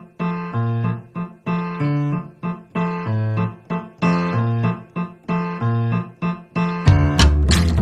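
Background piano music: a repeating pattern of chords over a low bass line. Near the end a louder, fuller accompaniment with sharp percussive hits comes in.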